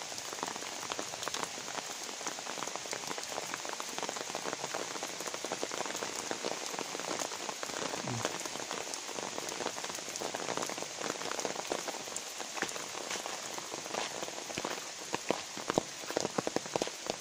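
Light rain falling steadily on wet paving and puddles, a dense patter of small drop hits, with a run of louder, closer drop hits near the end.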